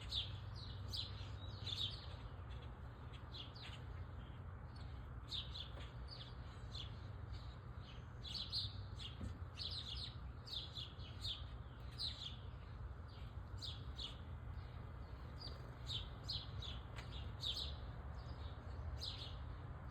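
Small birds chirping continually, many short high chirps, each dropping in pitch, a few a second, over a low steady hum.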